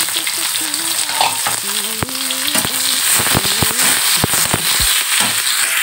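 Chopped onions sizzling loudly in hot oil in a kadhai. From about two seconds in, a metal spatula clatters and scrapes against the pan as they are stirred.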